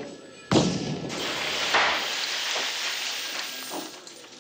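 A loud gunshot-like bang blasting into a vending machine about half a second in, followed by a few seconds of crashing, clattering glass and debris that slowly dies away.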